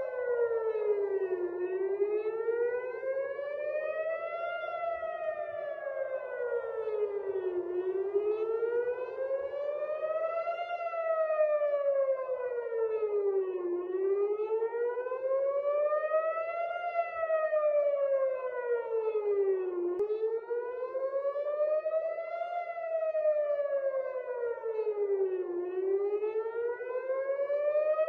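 Civil-defence air-raid siren wailing, its pitch rising and falling slowly about once every six seconds: the alert warning of an incoming missile.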